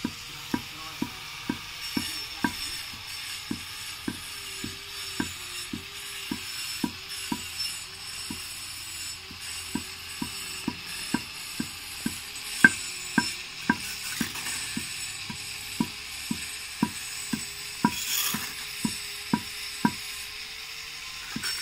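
Hammer pounding pieces of fired brick on a stone slab, crushing them into brick powder: a steady run of sharp knocks, about two a second.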